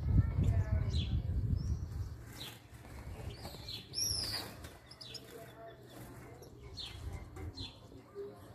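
Caged European goldfinches calling: short high chirps about once a second, and one loud whistled call that rises and falls about four seconds in. A low rumbling rustle is loudest in the first two seconds.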